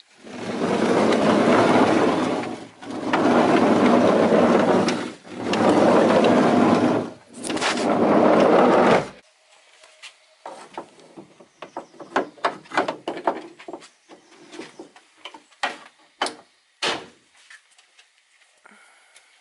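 A rowing boat's sliding seat pushed back and forth along its track four times, each stroke a loud rolling rumble. Then a run of lighter clicks and knocks as a metal outrigger is handled and fitted to the gunwale.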